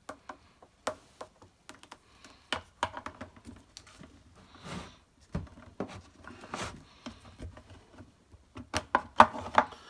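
Scattered light clicks, taps and short rustles of hands handling objects on a workbench, including the plywood-mounted chrome beer-engine pump, with a quick cluster of clicks near the end.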